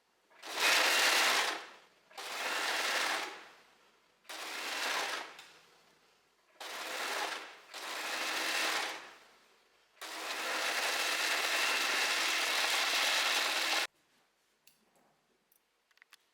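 Overlocker (serger) stitching jersey fabric in short stop-start runs, five brief bursts a second or so apart. These are followed by one longer run of about four seconds that stops abruptly, then a few light clicks.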